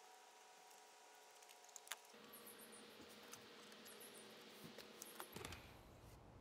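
Near silence, with a few faint ticks and rustles from hand-stitching a leather sheath, the thread being drawn through the stitch holes.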